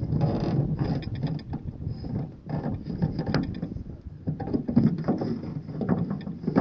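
Close handling noise: irregular rustling, scraping and small knocks as hands work a cord against the phone and the wire mesh around it.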